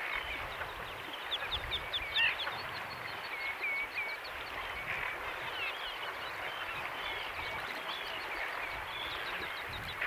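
Chorus of wild birds at a lake: many short, high chirps and whistles, some rising and some falling, scattered throughout over a steady background hiss.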